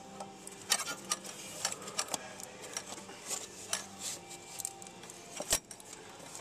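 Irregular sharp clicks and light metallic clinks of hands and tools working the fuel filter's plastic quick-connect fuel line fittings, the loudest about a second in and near the end.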